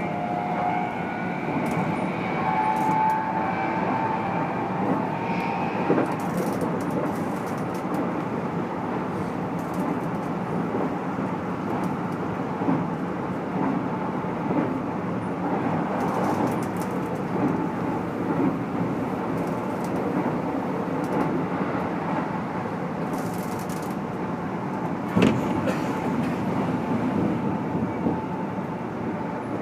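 Keikyu N1000 series commuter train running, heard from inside the motor car, whose MB-5121-A traction motors and Toyo Denki IGBT VVVF inverter make this set known for unusually loud, abnormal running noise. In the first few seconds the inverter and motor whine rises, then gives way to steady wheel and rail noise, with a few sharp clacks from rail joints, the loudest near the end.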